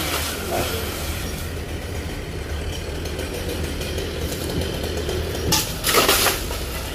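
Chainsaw running steadily at idle. Two short, louder bursts come a little over five seconds in.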